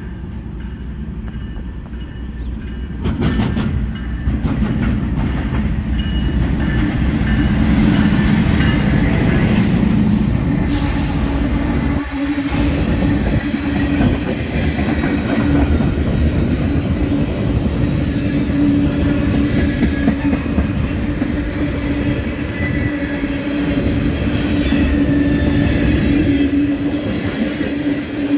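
Diesel-hauled freight train of tank cars passing close by: the locomotives draw near and the sound rises sharply about three seconds in, then the cars' wheels keep up a steady rumble and clatter on the rails. A steady hum runs under it from about eight seconds on.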